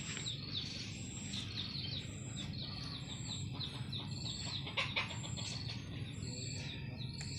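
Outdoor birdsong: small birds chirping in quick runs of short, falling notes, over a high thin pip repeated about once a second.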